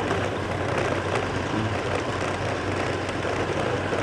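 Motor vehicle engine running with a steady low hum under continuous road or wind noise.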